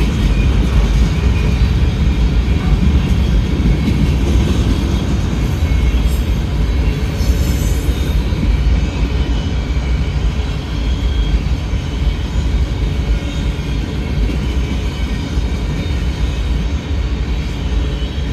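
CSX mixed manifest freight train rolling past, a steady loud rumble of wheels on rail that eases a little near the end.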